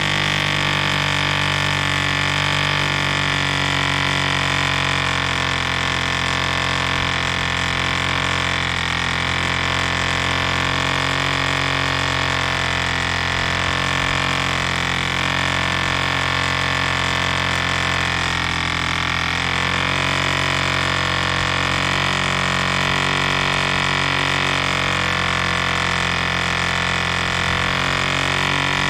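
A 1947 Drone 4.85 cc diesel model airplane engine running steadily at a constant speed, turning a 14 x 6 propeller; the pitch holds even, showing its needle valve is set for a steady run.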